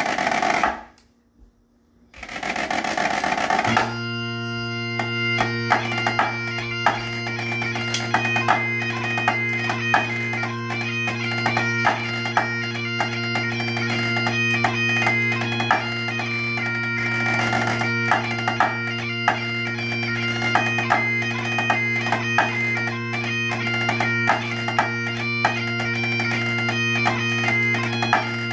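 Highland bagpipes come in about four seconds in: the drones set up a steady low chord under the chanter playing a tune. Drumsticks tap out a rhythm on a practice pad along with the pipes.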